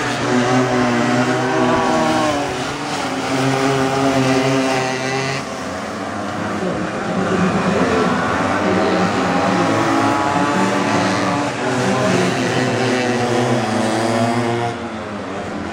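Air-cooled two-stroke minimoto engines running hard as the pocket bikes lap the circuit. Their pitch rises and falls as the bikes accelerate, brake and pass.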